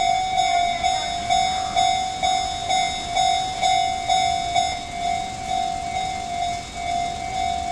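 Japanese railway level-crossing alarm ringing from the crossing signal's horn loudspeaker: a steady electronic bell tone repeating about twice a second. It warns that a train is approaching.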